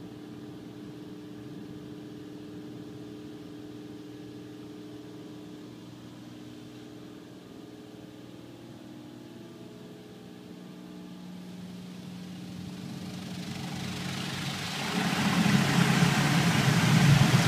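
Automatic car wash heard from inside the car. A steady hum with a few held tones gives way to a rushing noise that swells from about two-thirds of the way in and turns loud near the end as the wash equipment reaches the car.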